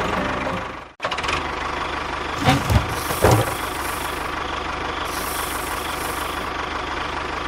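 Small engine idling with a steady, fast knock. It cuts out abruptly about a second in and comes straight back, and a few heavy thuds land around the third second.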